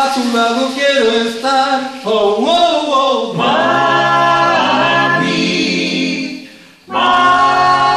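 A vocal group singing a cappella, several voices in harmony with no instruments. The voices drop away briefly about a second before the end, then come back in together.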